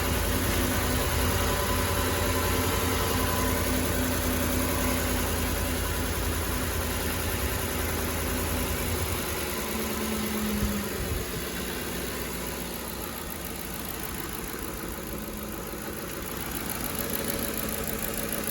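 Ford F150's 5.4-litre three-valve Triton V8 running at idle on a test start after new spark plugs were fitted; it runs steadily, then settles lower and quieter about halfway through.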